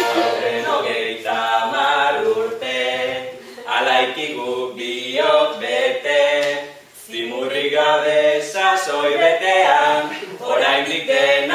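A group of voices singing a song together in chorus, in sung phrases with short breaks between them.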